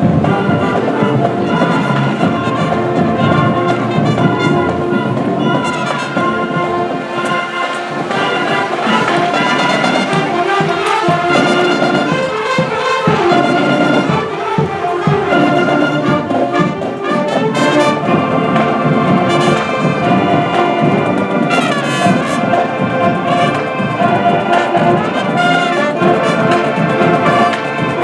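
High school marching band playing, its brass section (trumpets, trombones, horns) carrying the melody loudly.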